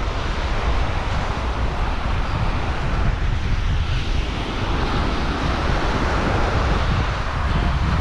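Wind buffeting the microphone with a heavy low rumble, over the steady hiss of ocean surf washing onto the beach; the surf hiss swells about five seconds in.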